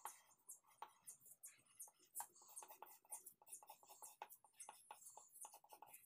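Faint scratching of a coloured pencil on paper in quick, short, irregular strokes, shading the leaves of a drawn palm tree.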